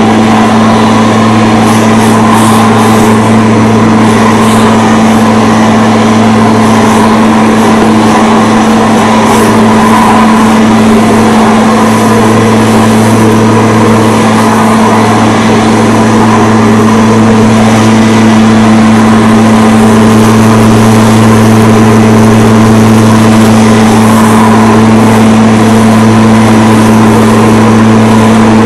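Lawn mower engine running steadily at a constant speed, loud and close, with an even low hum that does not change.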